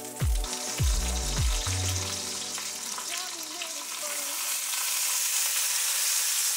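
Music with a steady beat that ends about two seconds in, then hot oil sizzling in a pot beneath matzo crackers laid as a tahdig crust. The sizzle grows louder and brighter about four seconds in, as herb rice is poured onto them.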